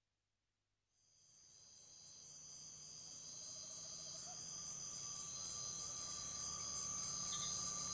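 A chorus of crickets trilling, with a low steady hum underneath. It fades in from silence about a second in and grows steadily louder.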